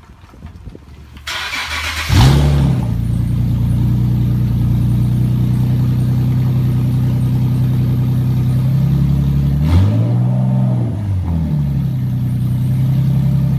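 Nissan 370Z's 3.7-litre V6 starting through a Tomei Expreme catback exhaust: a short crank, catching with a flare about two seconds in, then settling into a steady idle. It gives one quick rev about ten seconds in before returning to idle.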